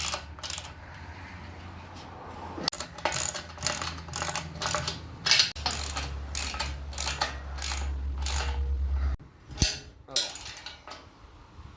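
Socket ratchet clicking as bolts on a steel shop press frame are tightened: a run of ratchet strokes, each back-swing a short burst of pawl clicks, repeating about two to three times a second.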